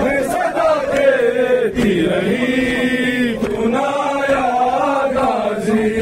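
Men's voices chanting a Muharram mourning lament together in a continuous, sliding melody.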